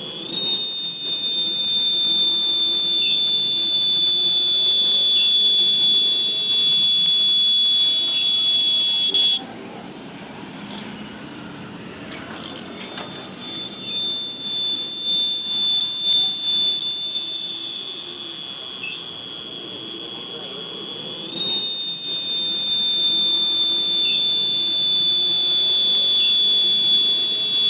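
Cicada singing at close range: a loud, steady, high-pitched buzzing drone. It cuts off abruptly about nine seconds in, leaving fainter background sound, and starts up again about twenty-one seconds in.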